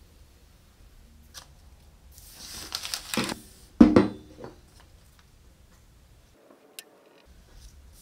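Paper rustling, then a heavy iron pick-axe head set down on the worktable with a loud clunk that rings briefly, followed by a few light taps.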